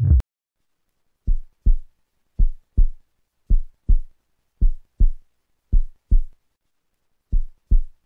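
Heartbeat sounds: a steady lub-dub rhythm of paired low thuds, about one beat a second, with a slightly longer pause before the last beat near the end. Each pair is the first heart sound (closing of the atrioventricular valves) followed by the second (closing of the semilunar valves).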